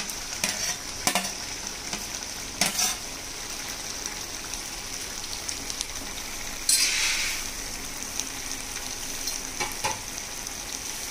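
Raw chicken pieces sizzling steadily in hot oil and green masala paste in an aluminium kadai, with a few sharp knocks in the first three seconds. About seven seconds in the hiss swells louder for about a second.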